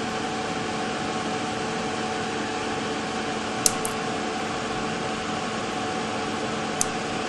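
Flush cutters snipping off the excess leads of a crystal soldered into a circuit board: a sharp click about three and a half seconds in and another near the end. A steady hum and hiss runs underneath.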